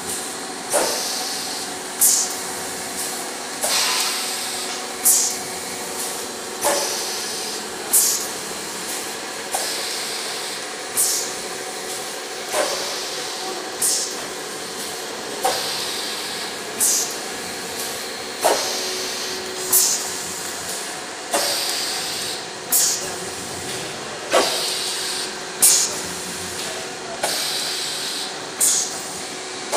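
Pneumatic bag-cutting machine running: a steady mechanical hum, with a sharp clack and a burst of air hiss from the cutting stroke about every one and a half seconds, in an even rhythm.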